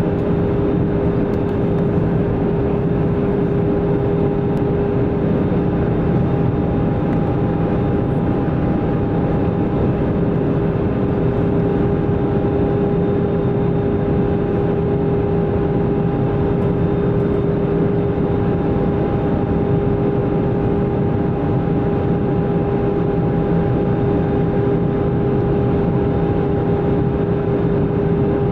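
Jet airliner cabin noise heard at a window seat over the wing: a steady rush of air and engine noise with a steady droning hum, as the plane flies its approach to land.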